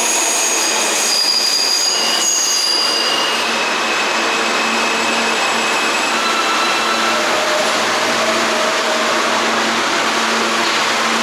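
New York City subway train running on steel rails. Its wheels squeal in several high, steady tones for the first few seconds, then give way to a steady loud rush of wheels on track.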